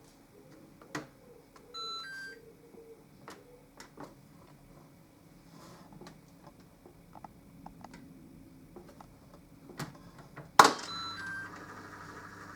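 Mini washing machine's control panel: scattered clicks and a two-note electronic beep about two seconds in. Near the end a loud click comes with the same two-note beep, then a steady low hum begins as the machine starts.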